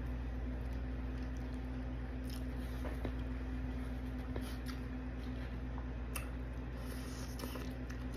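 Close-up chewing and squishy mouth sounds of someone eating saucy broccoli in brown sauce, with a few faint clicks scattered through, over a steady low hum.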